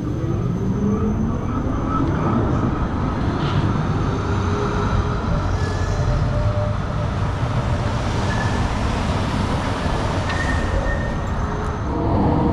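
Tram passing close by: a loud, steady rumble of wheels and motor, with a whine that rises in pitch at the start as it gathers speed.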